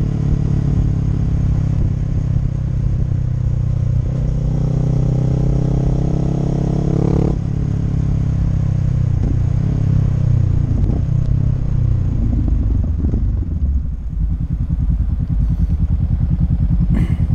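Honda CB500X parallel-twin engine and exhaust running: the revs climb for a few seconds, drop off sharply about seven seconds in, then settle into a steady low-rev pulse near the end.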